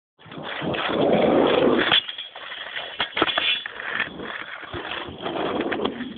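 Skateboard wheels rolling over asphalt, loudest in the first two seconds and again near the end, with a few sharp clacks of the board in the middle.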